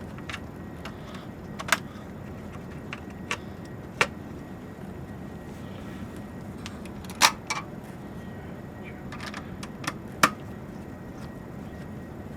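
Server cable connectors being handled and clicked into their sockets on the system board: scattered sharp clicks, the loudest about seven and ten seconds in, over steady background noise.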